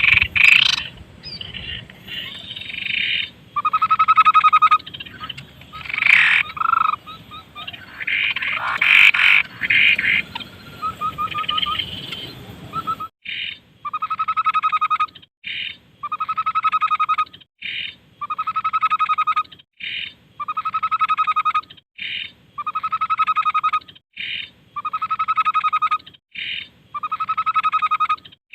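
Tepus babbler song from a masteran recording. It starts as a jumble of varied calls, then about halfway through settles into one phrase repeated evenly about every second and a half: a short high note, then a longer, lower buzzy note.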